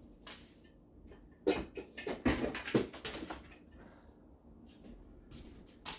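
Kitchen utensils knocking and clattering against a cooking pot, a cluster of sharp knocks between about one and a half and three and a half seconds in.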